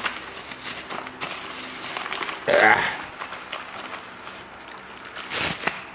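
Quiet rustling and handling of the kit's parts, with a brief hum of a man's voice about two and a half seconds in and a short, louder clatter near the end.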